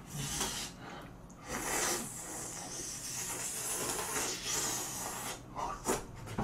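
A person sucking and slurping meat off a hot pork back bone from gamjatang: a long hissing slurp lasting a few seconds, starting about a second and a half in.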